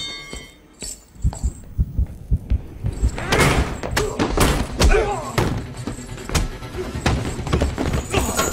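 Close-quarters fist fight: repeated punches and body thuds with grunts, over a film score. The blows come thick from about three seconds in.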